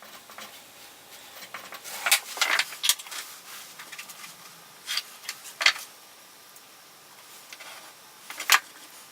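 Metal squares handled on a workbench: a few scattered light clicks and knocks as they are set down and picked up.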